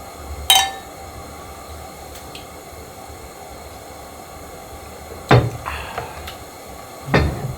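Cups clinking once in a toast, ringing briefly, followed by two duller knocks, one about five seconds in and one near the end, over a steady low background hum.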